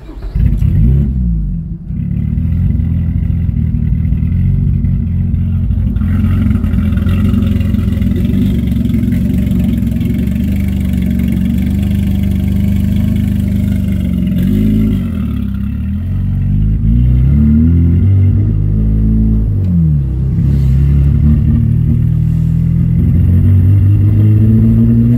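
Swapped 3.5-litre V6 of a six-speed Nissan Maxima with aftermarket headers, heard from inside the cabin pulling hard under acceleration. The engine pitch holds, then rises and drops several times in the second half as gears change, climbing again near the end.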